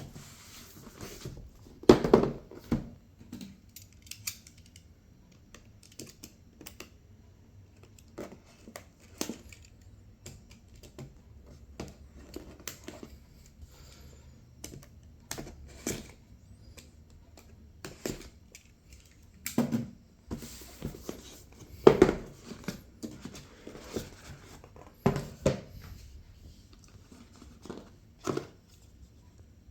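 Cardboard and plastic packaging being handled and opened: scattered rustling, crinkling and small clicks, with a few louder knocks as pieces are set down or pulled out.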